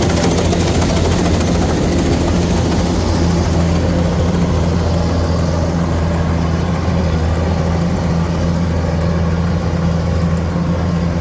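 Kubota rice harvester's diesel engine running steadily, a loud, even low drone with machinery noise over it.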